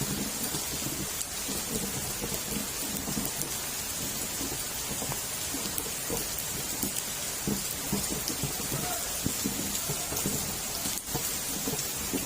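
Heavy rain falling steadily: an even hiss with dense drops striking surfaces.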